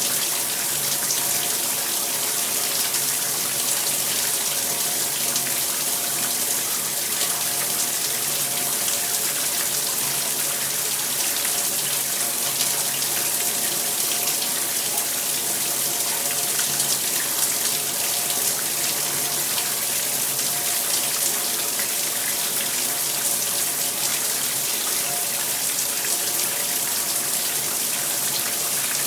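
Shower running steadily, water spraying and splashing with an even hiss and a faint steady hum under it.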